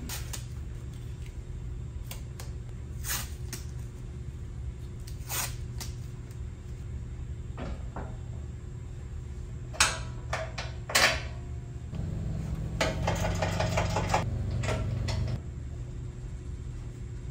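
Sharp knocks and clunks of a chrome steel pickup bumper being pushed and worked by hand at its end, over a steady low hum. The two loudest knocks come close together about two-thirds in, followed by a louder stretch of rattling lasting about three seconds.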